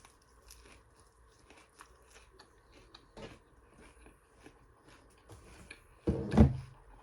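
Close-miked chewing and crunching of a mouthful of fresh salad greens, many small crisp crunches. About six seconds in comes one much louder, low-pitched thump.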